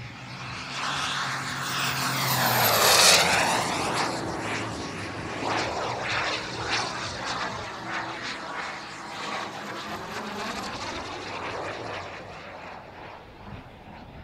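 Tomahawk Integral RC jet's model gas turbine making a fast low pass: a high whine drops sharply in pitch as it goes by, loudest about three seconds in. It is followed by a jet rush with a swirling, phasing sound that slowly fades as the model climbs away.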